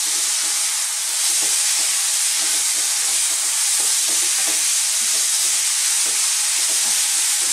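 Mushrooms, onions and canned sweetcorn sizzling in a hot non-stick frying pan while a wooden spatula stirs them. It is a steady high hiss, a little louder from about a second in, with soft irregular scrapes and knocks of the spatula.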